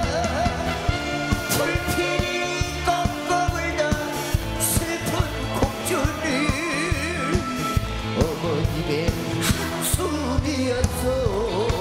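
A male singer sings a Korean trot ballad live with a wavering vibrato, backed by a band with drums, bass guitar and keyboards.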